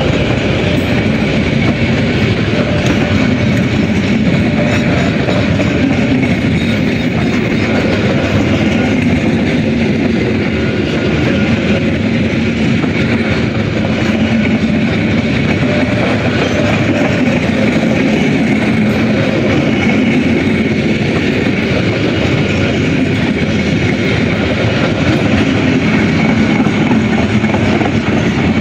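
Indonesian KAI passenger train's coaches rolling past at close range: a steady, loud rumble and rattle of steel wheels on the rails that holds throughout as carriage after carriage goes by.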